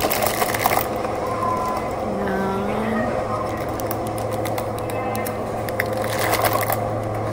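Clear plastic produce bag of green beans crinkling as it is handled, near the start and again about six seconds in, over a steady low hum.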